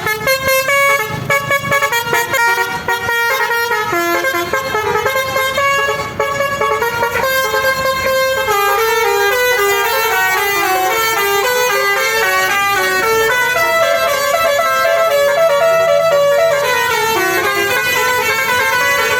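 A Basuri V3 twelve-trumpet musical air horn on a bus, playing a telolet tune of quick stepped notes. Short, clipped notes come in the first several seconds, then a flowing run of notes stepping up and down.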